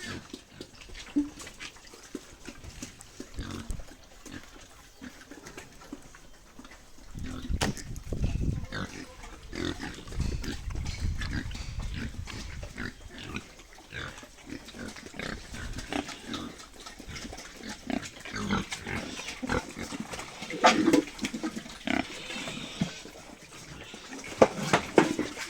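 Pigs grunting in a pen, with a few louder squeals near the end and a low rumble for several seconds in the middle.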